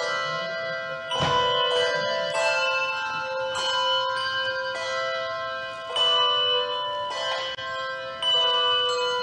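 Handbell choir playing a slow chorale: chords of bells struck about once a second, each ringing on into the next.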